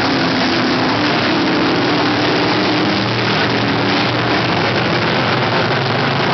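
A pack of dirt-track sportsman modified race cars running at racing speed, their engines blending into one steady drone.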